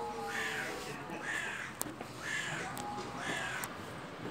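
A crow calling over and over, four calls about a second apart.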